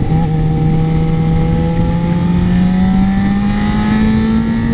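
2008 Suzuki GSX-R600's inline-four engine accelerating hard in one gear, its pitch rising steadily for about four and a half seconds, with wind rush over the helmet microphone.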